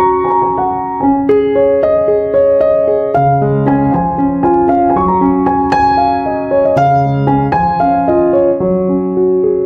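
Background piano music: a gentle melody of single struck notes over slower low bass notes, at an even, unhurried pace.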